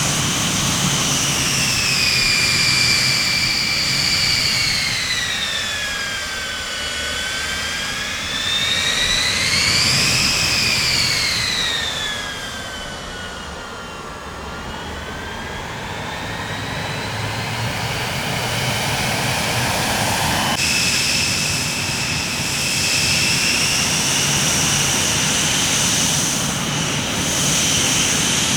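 Jet aircraft engines running with a steady roar and a high turbine whine that slides down, swells up about a third of the way in, falls again and slowly climbs. About two-thirds through it switches abruptly to a steadier whine.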